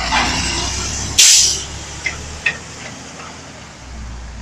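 Heil DuraPack Rapid Rail automated side-loader garbage truck running, with a sudden loud burst of air hiss about a second in, typical of the air brakes being released as the truck moves off. A couple of sharp clicks follow, and the engine rumble swells again as it pulls away.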